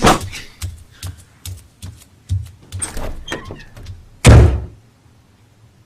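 Cartoon sound effects: a loud thump, then a run of lighter knocks about two a second, then a loud slam like a door banging about four seconds in.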